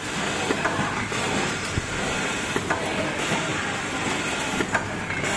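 Automatic servo screwdriver machine running as it drives screws into a heat sink: a steady mechanical whir over a low hum, with a few sharp clicks at irregular intervals.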